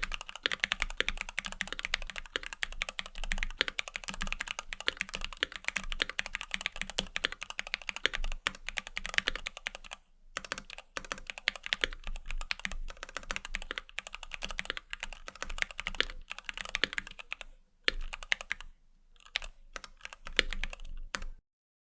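Typing on a Keychron Q1 aluminium keyboard with stock, unlubed Gateron Milky Yellow linear switches and PBT double-shot keycaps: fast, continuous keystrokes. There is a brief pause about halfway, a couple more short pauses near the end, and then the typing stops.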